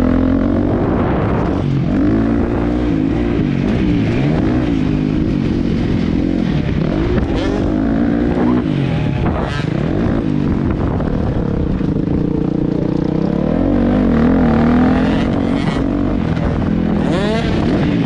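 Dirt bike engine running under load, its revs rising and falling continuously as the bike is ridden, with a low rumble of wind or terrain noise underneath.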